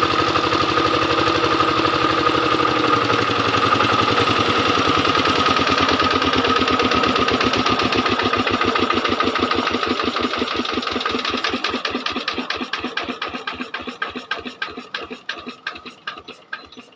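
Diesel generator engine running steadily, then slowing down after being shut off. Its firing strokes spread farther apart and fade over about ten seconds until it stops near the end.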